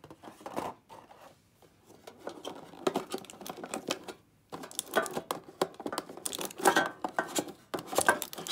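Foil wrappers of Pokémon booster packs crinkling and rustling as the packs are handled, with irregular small clicks and taps, getting busier about halfway through.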